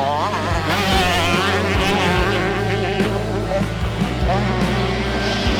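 Background music laid over 125cc two-stroke motocross bikes racing, their engines rising and falling in pitch as they rev.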